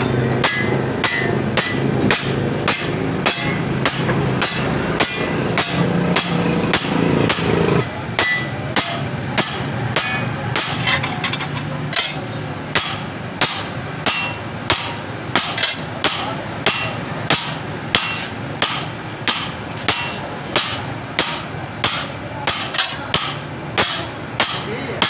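Steady hammer blows on a handled chisel held against a steel plate on an anvil: sharp metal-on-metal strikes at about two a second. A steady low hum runs under the first eight seconds and then stops.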